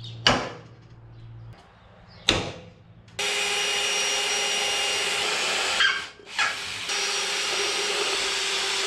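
Two sharp hammer knocks on a pin punch, then an electric drill boring a hole of about 4.5 mm into the steel chassis rail at the end of a crack, to stop the crack travelling. The drill runs steadily for a few seconds, stops briefly, then runs again.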